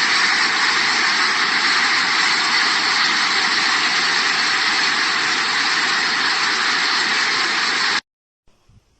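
Typhoon storm noise: a loud, steady rush of wind and rain that cuts off abruptly about eight seconds in.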